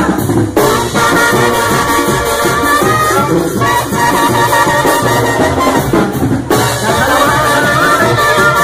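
Brass-and-percussion band music: a brass melody over a driving drum beat, with shakers.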